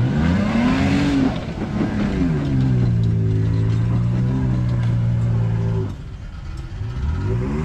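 Toyota Tacoma pickup's engine revving as the truck drives through a muddy off-road hole. Its pitch climbs and falls in the first two seconds, holds steady for a few seconds, then climbs again near the end.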